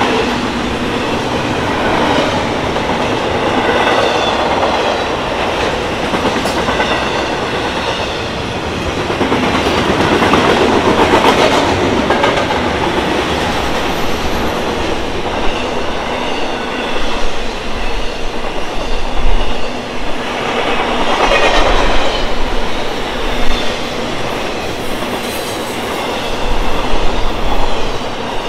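BNSF intermodal freight train's container and trailer cars rolling past, wheels clattering over the rail joints. A faint high wheel squeal comes and goes, and there are a few sharper knocks in the second half.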